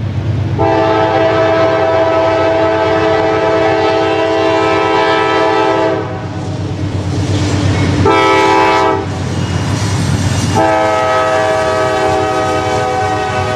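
Diesel locomotive's chime air horn sounding a long blast of about five seconds, a short blast, then another long blast, over the low rumble of the locomotive.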